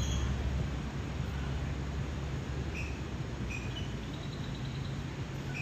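Steady outdoor rumble and hiss, with a few faint, short, high chirps from about three to four and a half seconds in.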